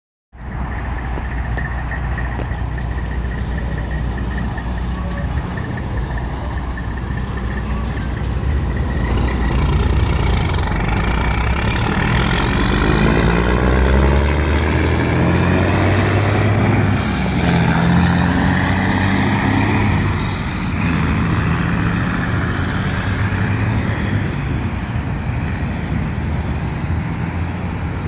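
Straight-piped diesel engine of an International 9200i tanker truck idling, then pulling away under load, its exhaust note climbing in pitch and dropping back several times as it shifts up through the gears.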